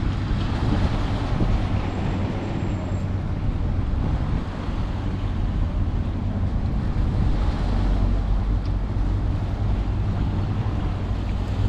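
Steady wind rushing over a microphone, with a low, continuous rumble and hum underneath.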